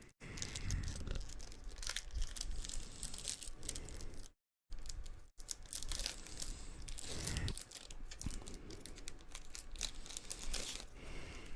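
Foil wrapper of a Pokémon trading-card booster pack crinkling and tearing as it is ripped open and handled. The sound cuts out abruptly twice a little under halfway through.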